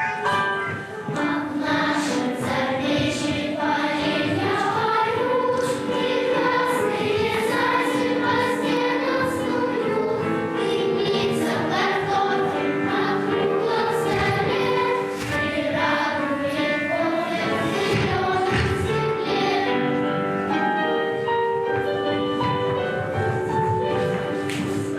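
A children's choir singing a song, with instrumental accompaniment.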